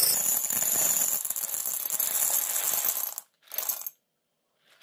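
Dried chickpeas poured from a plastic bag into a glass bowl: a dense rattling of hard peas striking the glass and each other. The pour stops about three seconds in, with one short last trickle just after.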